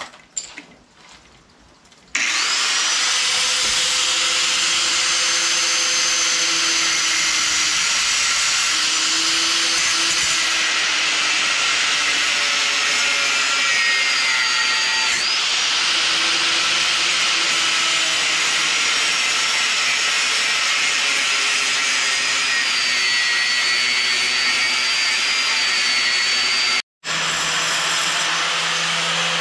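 Angle grinder grinding metal, starting about two seconds in: a loud, steady hiss with a high motor whine that dips and wavers as it is pressed into the work. It cuts out abruptly for a moment near the end.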